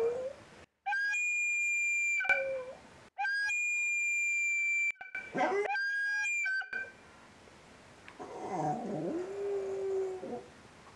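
Small dog howling. A rising howl comes near the middle, and about eight seconds in a long howl dips, then rises to a held note. Before it, three stretches of steady high tones start and stop abruptly.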